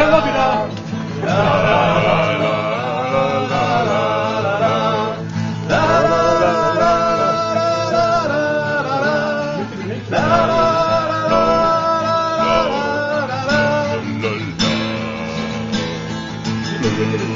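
A man singing in long phrases over a played acoustic guitar.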